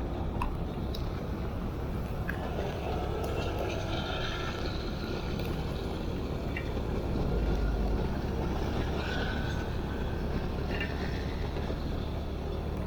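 Motorbike riding in heavy rain: the engine runs steadily under a constant noisy rush of wind and rain, swelling slightly about seven seconds in.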